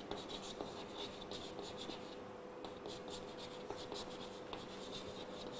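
Chalk scratching on a blackboard as words are written, in many quick short strokes and taps, faint, with a steady hum underneath.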